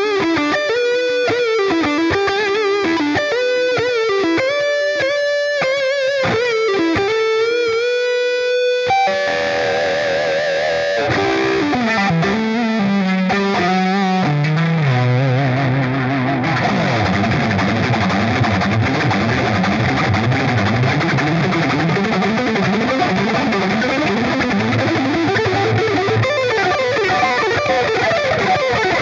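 Ibanez RG3250MZ electric guitar played through its neck pickup with distortion. It opens with a slow single-note lead with bends and vibrato, then about nine seconds in breaks into fast runs that fall to low notes and turn into dense, rapid lead playing.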